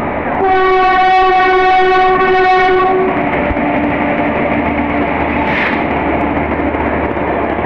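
Indian Railways locomotive sounding one long horn blast of nearly three seconds as it comes alongside the platform. The steady rumble and hum of the moving train carry on underneath and after it.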